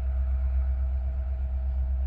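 Canadian National manifest freight train moving past with a steady low rumble and a faint steady tone above it.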